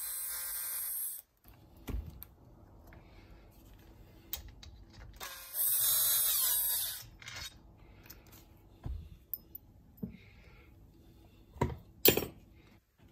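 A Makita cordless drill runs and stops about a second in, then runs again about five seconds in for under two seconds, its motor pitch shifting as it spins. Scattered knocks and clicks of handling follow, the loudest two close together near the end.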